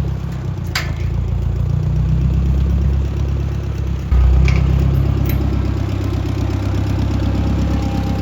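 John Deere 1010 tractor engine running steadily, getting suddenly louder about four seconds in as it takes up load, with a couple of sharp metal clanks.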